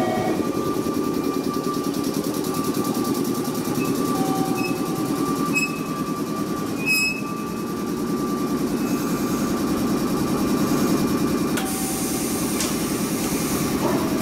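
JR Kyushu 415 series electric train coming to a stop at the platform, its underfloor equipment giving a steady pulsing hum. Near the end a hiss of air comes as the doors open.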